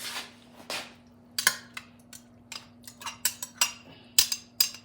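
A spoon clinking and scraping against a dish as cooked collard greens are scooped out and tipped into a crock pot: about a dozen short, irregular knocks and scrapes.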